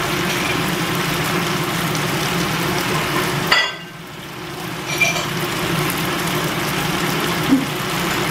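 Bok choy, mushrooms and scallops sizzling in a wok over a gas burner, with a steady low hum underneath. A little past three seconds in, a click comes and the sound drops away for about a second and a half, then comes back.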